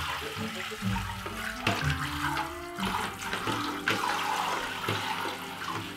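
Handheld shower head spraying water over a small wet dog standing in a plastic basin of water, with a steady hiss and patter of water and a few splashes.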